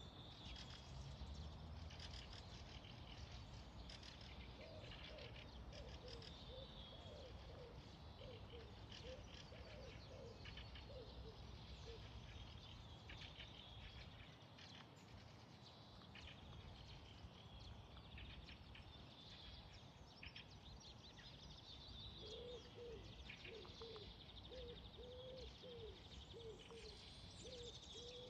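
Faint birds chirping and singing in high, short phrases over a quiet outdoor hiss. Twice, a run of quick, repeated low notes, several a second, sounds for about six seconds.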